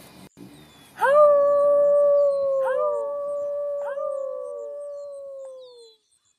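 Howling canine, three overlapping long howls. Each starts with a quick upward swoop, then holds and slowly sinks in pitch. The first comes about a second in and the others join about two and three seconds in; all stop abruptly near the end.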